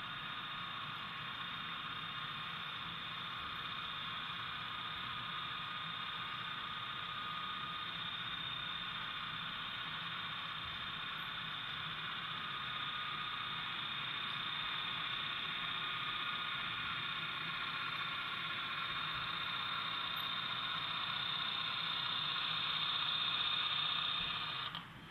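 HO scale model passenger train running on its track: a steady whirring hiss from wheels and motor that grows louder as the diesel nears, then cuts off abruptly near the end.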